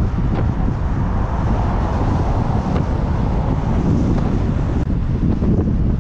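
Wind buffeting the microphone of an onboard camera on a bicycle ridden at speed, a steady low rumbling rush.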